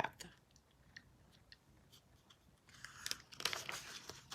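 Paper rustling and crinkling with small clicks, as of picture-book pages being handled, starting after about two and a half seconds of near silence.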